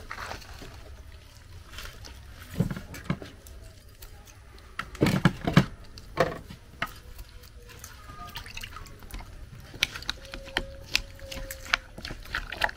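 Liquid sloshing and dribbling during food preparation, broken by sharp knocks and clatters, the loudest cluster about five seconds in.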